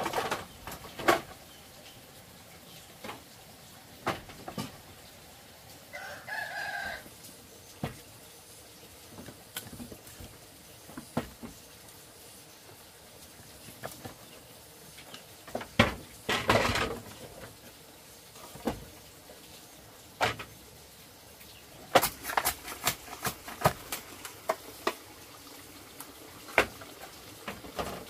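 A chicken calls once, about six seconds in, among scattered short knocks and clatter.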